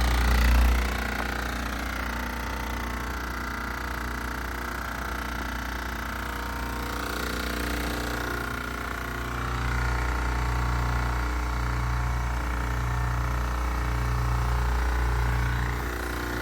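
Carrier Comfort heat pump outdoor unit running with a steady mechanical hum and buzz. The low hum drops about a second in and comes back stronger near 10 s with a buzz that pulses roughly once a second.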